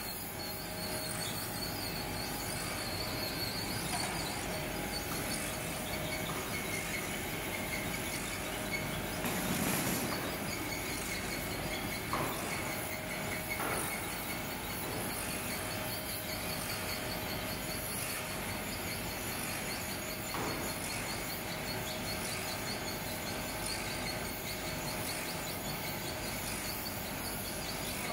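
Sawdust briquette machine and its wire-mesh outfeed conveyor running steadily while pressing sawdust into briquettes: a continuous mechanical rubbing noise with a faint steady whine. It swells briefly about ten seconds in, and there are a few light knocks.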